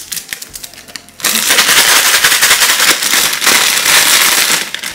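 A packet of crushed Mamee Monster dry noodle snack being shaken with its seasoning powder: a loud, dense rattle of the hard noodle bits inside the plastic packet. The rattle starts about a second in and stops just before the end, after quieter crinkling of the packet.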